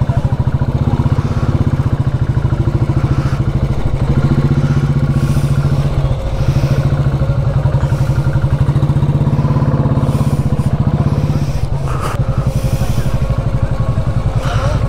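Royal Enfield Bullet's single-cylinder engine running at low speed with a steady pulsing beat. The note dips briefly about six seconds in and again near twelve seconds.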